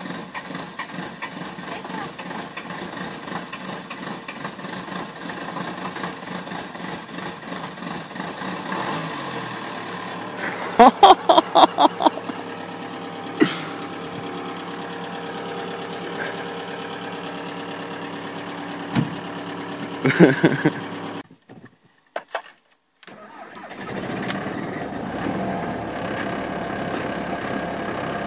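Cold diesel engine of an Audi A4 B5 idling steadily just after a freezing cold start, broken about a third of the way in by a quick string of loud, short sounds and a few more later. After a brief silence, the 2.0 TDDi diesel of a 2001 Ford Mondeo MK3 starts at −20°C, its glow plugs cycled five times, and runs at a cold idle.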